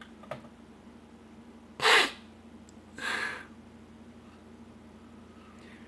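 A person's sharp, audible breaths: a loud gasp-like breath about two seconds in and a softer one about a second later, after a small click near the start, over a faint steady hum.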